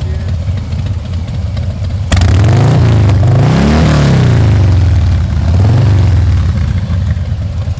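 Harley-Davidson V-twin with an aftermarket exhaust idling, then revved hard about two seconds in: the engine note climbs and falls back, followed by a second, smaller rev, over other idling bikes.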